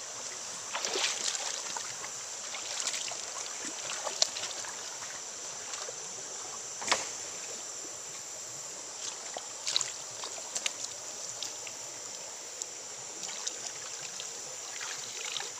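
Shallow forest stream running over stones in a steady wash, with scattered short knocks and splashes from movement at the water's edge.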